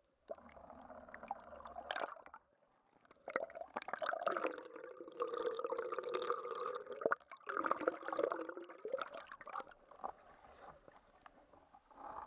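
Shallow seawater sloshing and gurgling around an action camera that keeps dipping in and out of the surface, heard muffled through the camera's housing, with small splashes and clicks.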